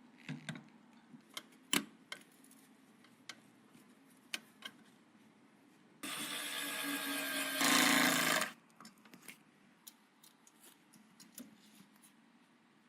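Small clicks and taps of computer parts being handled, then an electric screwdriver running for about two and a half seconds, louder for its last second.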